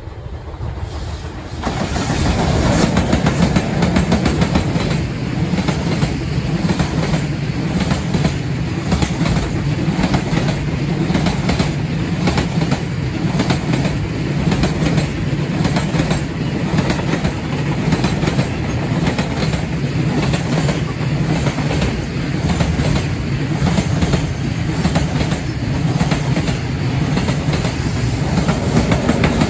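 A freight train of container wagons passing close by: a steady low rumble with a rhythmic clickety-clack of the wheels over the rail joints, growing loud about two seconds in.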